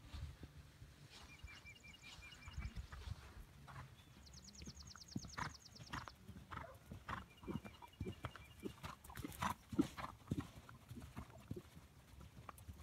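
Hoofbeats of a ridden horse moving around a sand arena: a steady run of dull thuds on the soft footing, with one sharper knock a little before ten seconds in.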